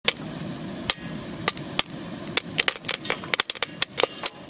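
Popcorn kernels popping in a hot metal pan: sharp, irregular pops, few at first and coming faster after about two seconds, over a steady hiss.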